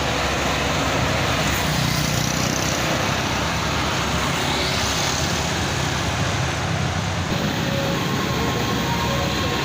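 A large diesel bus passing close on a steep hill road: steady engine running under a broad road rush.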